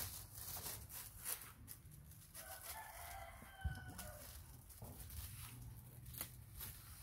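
A rooster crows once, faintly, about two and a half seconds in, the call lasting about a second. There are light clicks and rustles of a plastic bag being handled around it.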